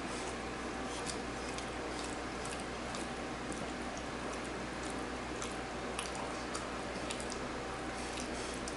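Wet eating sounds of a person chewing chicken curry and rice: scattered small squishy clicks and smacks over a steady low hiss.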